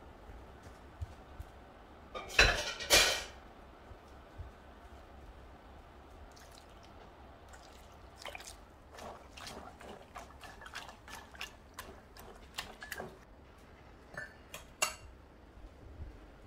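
Stainless steel pot and basin clanking together twice, about two seconds in, followed by scattered light metallic clicks and drips of soy-sauce brine.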